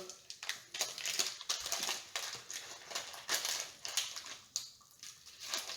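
Crinkling and crackling of an MRE trail-mix pouch being opened and handled: an irregular run of rustles and sharp little crackles, busiest in the first couple of seconds and thinning out after.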